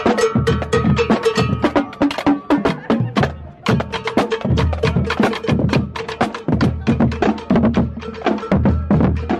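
Marching drumline playing a fast cadence: rapid snare and tenor drum strokes over repeated bass drum hits from Yamaha marching bass drums.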